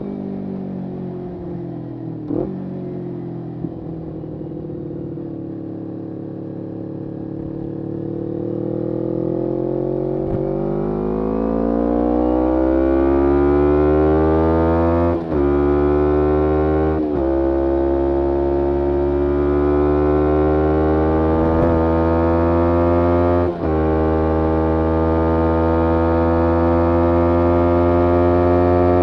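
2011 Kawasaki Ninja 250R's parallel-twin engine through a full Graves racing exhaust: the note sinks slowly, then climbs and grows louder over several seconds and holds a steady, higher drone, with a few brief dips.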